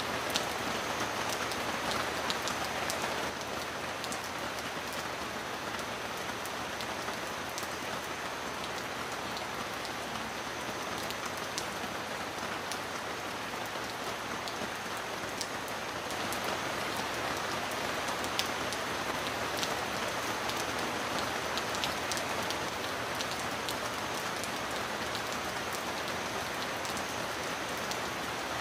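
Heavy rain falling steadily, with many distinct drop ticks over the hiss; it swells slightly about halfway through.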